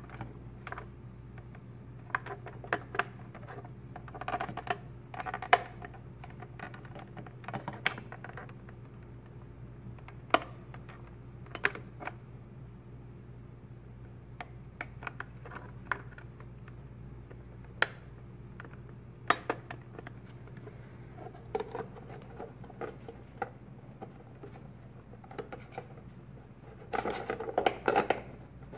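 Irregular plastic clicks and taps as cables are plugged into the back of a Ubiquiti UniFi ceiling access point, with a denser run of knocks and rattles near the end as the unit is pressed into its ceiling-tile mount ring. A steady low hum sits underneath.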